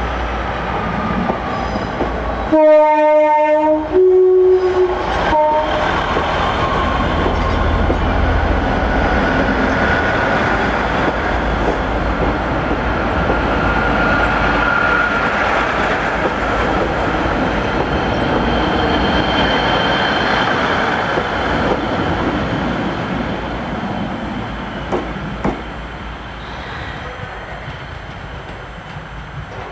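A Class 156 Sprinter diesel multiple unit sounds its two-note horn about three seconds in, a lower note and then a higher one. It then runs past with its diesel engine and its wheels clattering over the rail joints, and the sound fades as it pulls away.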